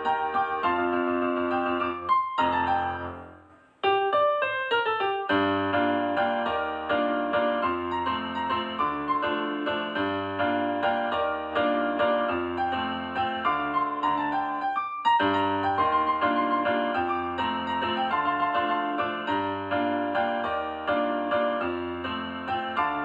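Background piano music, a steady run of notes that fades out about three seconds in and starts again a moment later.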